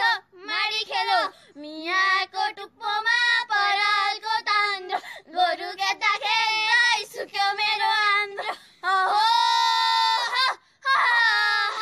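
A young female voice singing a Nepali millet-threshing song in short melodic phrases with brief gaps, including one long held note near the end.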